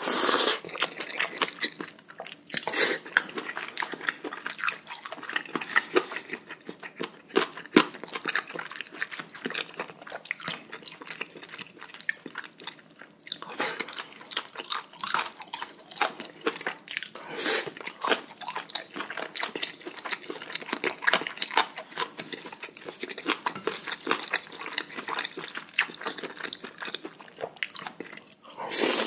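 Close-miked eating: noodles slurped in a few loud bursts, the strongest at the start and near the end, between steady wet chewing of spicy chicken with crunching from its knee cartilage.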